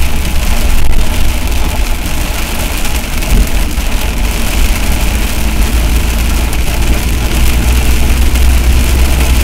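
Heavy rain pelting a vehicle, an even hiss with fine patter, over a steady low rumble from the vehicle itself.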